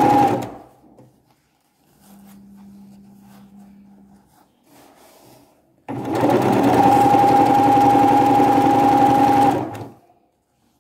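Electric domestic sewing machine stitching a seam through tea-towel fabric: it stops about half a second in, starts again abruptly about six seconds in, runs steadily for about four seconds and stops. A faint low hum sounds in the pause.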